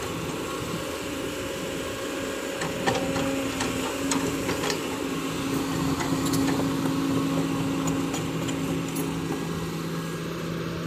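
Kobelco SK140 hydraulic excavator's diesel engine running steadily under load as it digs and lifts a bucket of wet mud, with a few short knocks about three seconds in.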